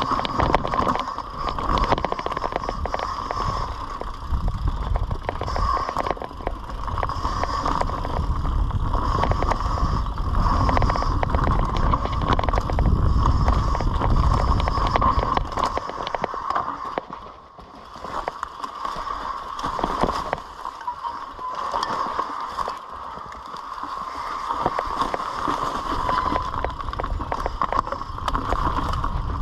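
Mountain bike on a rough dirt forest trail: tyres rumbling over dirt, roots and rocks, with dense rattling and knocks from the frame and chain, a steady high buzz, and heavy wind rumble on the camera microphone that weakens for a few seconds past the middle.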